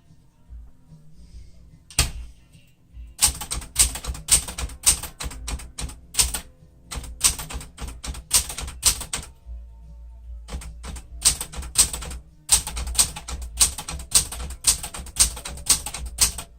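A 1972 Smith-Corona Classic 10 typewriter being typed on: runs of rapid key strikes, several a second. They start about two seconds in, with a pause of about a second in the middle and a shorter one later.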